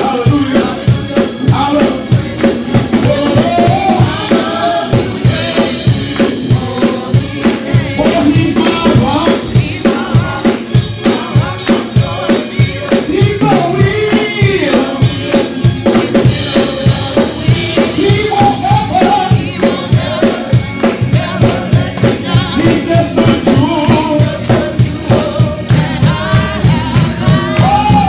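Gospel praise music: a man sings the lead through a microphone over a band with a steady driving beat.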